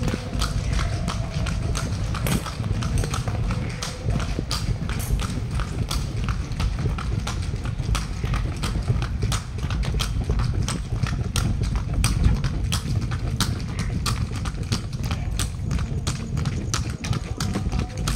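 Hooves of a water buffalo bull clopping on a hard road as it pulls a cart at a walk, with a steady low rumble underneath.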